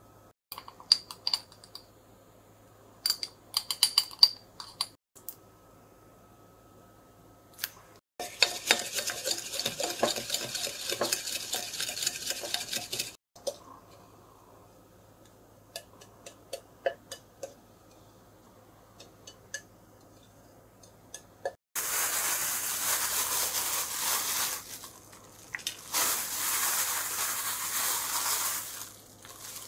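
A spoon clinking in a measuring cup, then about five seconds of quick, steady stirring as the seasoning is mixed, then scattered taps as the sauce is spread over the onions. In the last seconds comes loud rustling, in two spells, as shredded cheese is added.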